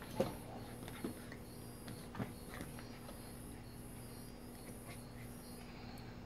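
Husky puppy at play with a plush toy on a tiled floor: three short sounds about a second apart near the start, the first the loudest, then only a steady low hum.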